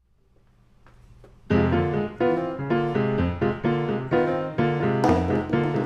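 Grand piano playing a jazz intro of repeated chords, starting about one and a half seconds in after a quiet fade-in. Drums join near the end with a bright cymbal wash.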